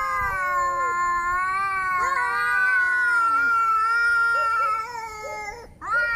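Angry cat yowling: long, drawn-out wavering wails, the first breaking off about two seconds in and the next held for more than three seconds before fading and cutting off near the end.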